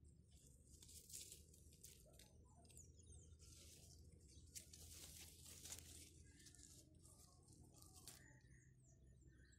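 Faint bird chirps in the background, with soft crackling rustles of leaves brushing close by between about one and six seconds in.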